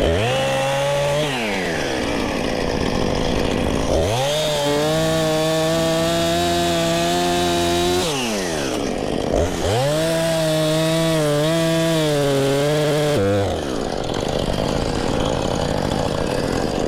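Chainsaw revved to full throttle for two cuts of about four seconds each, dropping back toward idle between them, with a brief rev at the start and another near the end, as small trees are cut down.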